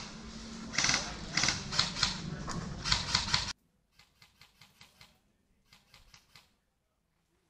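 Footsteps crunching through dry fallen leaves, a short crackle about every half second. About halfway through the sound drops abruptly to faint, distant rustling steps.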